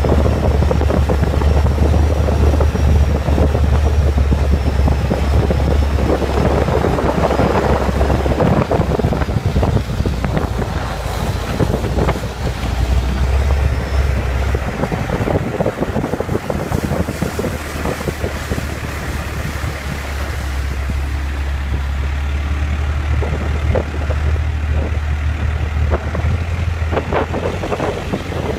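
Long-tail boat engine running steadily under way, with wind buffeting the microphone. The engine rumble eases briefly about halfway through, then picks up again.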